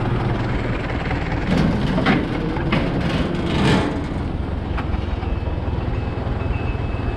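Universal 650 tractor's four-cylinder diesel engine running steadily while it pulls a row-crop cultivator, with a few short knocks near the middle.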